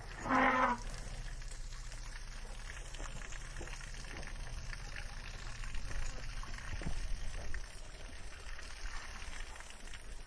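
A short elephant call in the first second, then a steady low rumble with a faint crackling haze over it.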